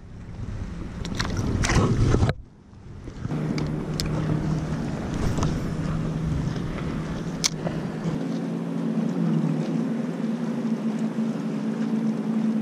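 Water splashing and hand noise as a small smallmouth bass is let go over the side of a kayak, cutting off abruptly about two seconds in. After that comes a steady low hum of a boat motor over light wind and water noise, with a couple of faint clicks.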